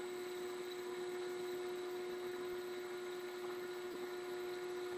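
Steady hum of an air blower running, pushing air through the pool's plumbing lines to winterize them.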